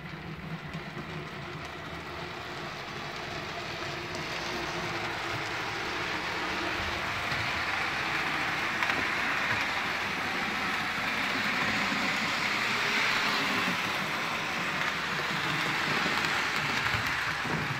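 Jouef HO-scale 141 steam locomotive model running along the layout track: a steady whirring running noise from its motor and wheels on the rails, getting louder over the first several seconds. The owner thinks this newly received model needs running in and a good clean.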